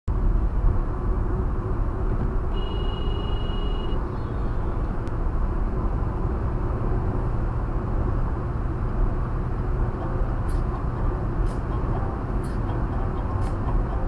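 Steady road and engine noise inside a car's cabin at highway speed. A brief steady high tone sounds about two and a half seconds in, and faint ticks come about once a second near the end.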